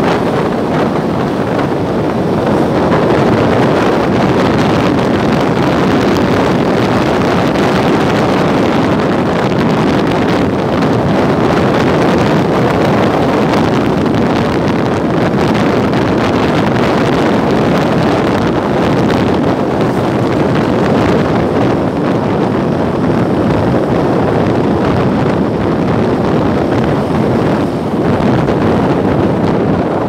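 Steady wind rush over the microphone of a moving motorbike, with the bike's engine and road noise underneath.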